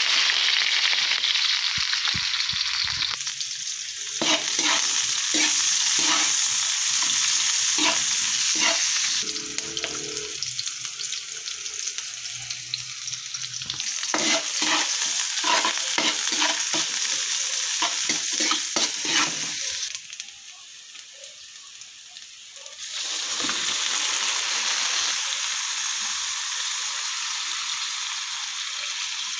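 Sliced onions and garlic sizzling in hot oil in a wok, with a spoon clacking and scraping against the pan as they are stirred. The sizzling dies down for a few seconds about two-thirds of the way through, then comes back steady.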